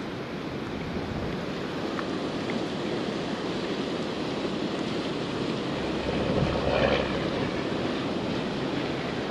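Steady rush of spillway water with wind noise on the microphone, swelling briefly a little louder about two-thirds of the way through.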